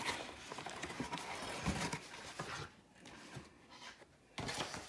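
A package being opened by hand: dense crackling and tapping for about two and a half seconds, a quieter pause, then a short rustle near the end.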